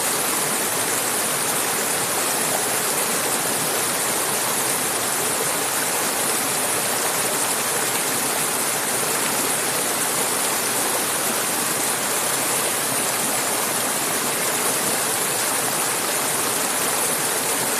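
Mountain river flowing over rocks: a steady rush of water, strongest in its hiss.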